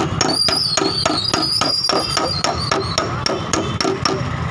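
Hammer tapping quickly and evenly on the sheet metal of a Hyundai i20's quarter panel, about five light blows a second, knocking out a dent without damaging the paint.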